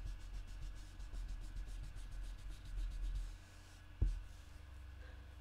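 Ink blending brush rubbed in quick strokes over cardstock: a soft, scratchy brushing with low rumble from the table, with a single knock about four seconds in.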